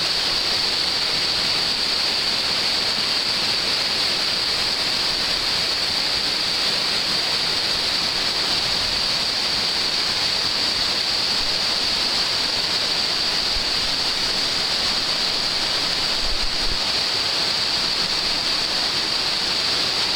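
Steady rush of river rapids and a waterfall: an even, unbroken roar of moving water with a hissy top.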